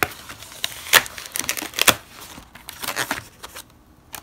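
A pad of corrugated cardstock being handled and its cover flipped back: a run of short, sharp crinkling rustles and taps of paper, the loudest about one and two seconds in, more around three seconds, then quieter.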